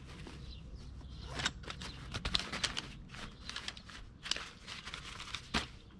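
Gear being handled by hand: irregular rustling of fabric with light clicks and a few sharper knocks.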